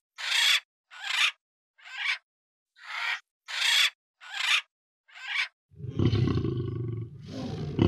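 About eight short, breathy hisses a little under a second apart, then, about six seconds in, a big cat starts a loud, deep roar that carries on to the end.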